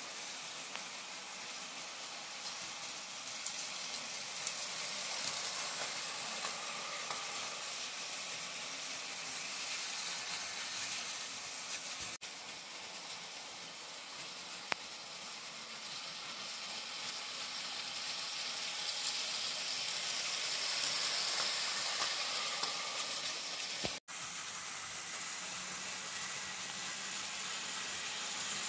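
Märklin H0 model trains running on the track: the locomotive motors and wheels give a steady whirring rattle that grows louder as a train comes closer, peaking about 21 seconds in. The sound drops out briefly twice, near 12 and 24 seconds.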